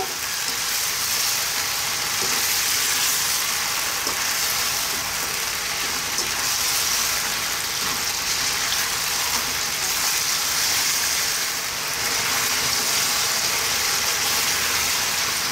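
Battered fish pieces, king oyster mushrooms and onion sizzling steadily in a salty soy and oyster sauce in a wok over high heat, stirred and tossed with a plastic slotted spoon.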